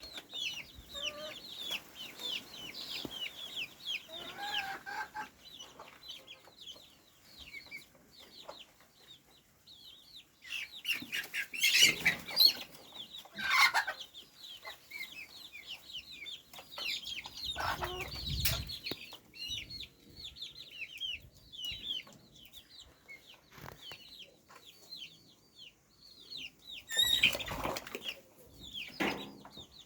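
Chickens clucking, with many short, high-pitched chirps that dip in pitch throughout. A few louder, harsher noises stand out along the way.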